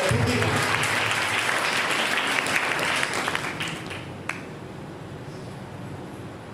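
Congregation applauding, dying away three to four seconds in.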